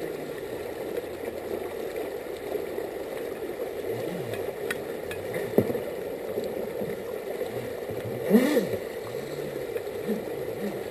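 Shallow river rushing over rocks, with a radio-controlled jet boat's motor rising and falling in pitch as it is throttled up and down. A brief louder burst comes about eight seconds in.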